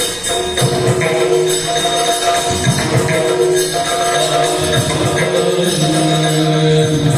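Yakshagana music: a held melody that moves in steps from note to note, over dense percussion with steady metallic jingling, the sound of the ensemble's chende and maddale drums, hand cymbals and the dancers' ankle bells.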